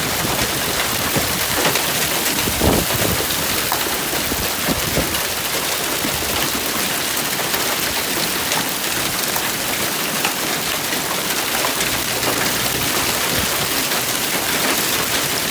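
Hail falling hard: a dense, steady clatter of hailstones striking, with a few louder single hits in the first few seconds.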